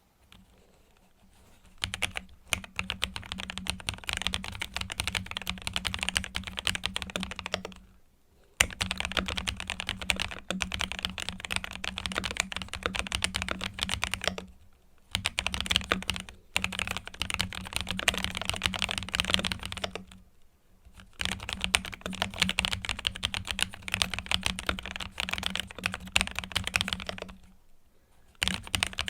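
ASUS ROG Azoth gasket-mounted mechanical keyboard being typed on fast, a dense stream of key clacks in runs of several seconds with brief pauses between them: a typing sound test of its pre-lubed, foam-dampened build.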